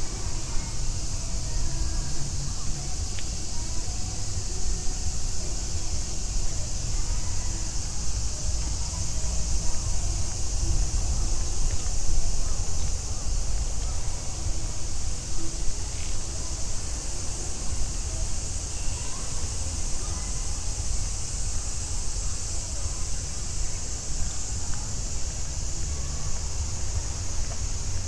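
Steady high-pitched chorus of cicadas over a constant low rumble of city traffic, with faint voices.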